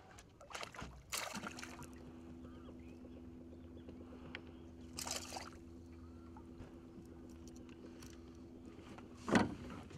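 A hooked yellow peacock bass splashing and thrashing at the surface beside the boat: a burst of splashing near the start, another around the middle, and the loudest near the end as it comes out of the water. Under it, a steady low hum from the boat's electric trolling motor sets in about a second in.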